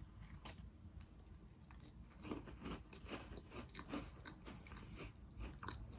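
A person biting into and chewing a crunchy butter cookie: faint, irregular crunches, coming more often from about two seconds in.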